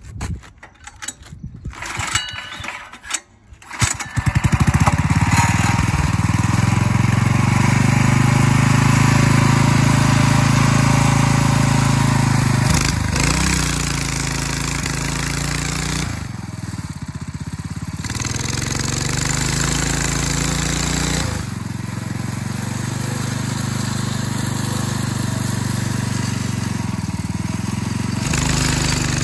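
Small engine of a homemade drift cart being started: a few seconds of sputtering and cranking, then it catches about four seconds in. It then runs steadily, with its speed and loudness rising and falling several times.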